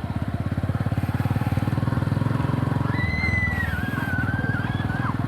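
Yamaha YTX 125's single-cylinder four-stroke engine running steadily through its exhaust while riding, with a brief dip about three seconds in. A thin, wavering whistle-like tone sounds over the second half.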